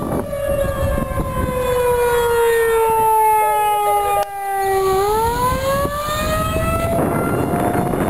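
Federal Signal 2001-SRNB electromechanical escape warning siren wailing during its test. Its pitch slides slowly down for about five seconds, then rises again. Strong wind buffets the microphone throughout.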